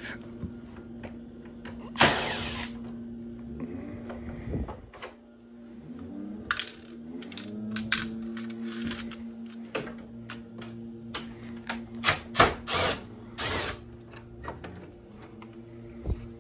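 Screws and hand tools clicking and clattering, with several short rasping bursts, as the cover-panel screws of a ductless mini-split head unit are taken out. A steady low hum runs underneath.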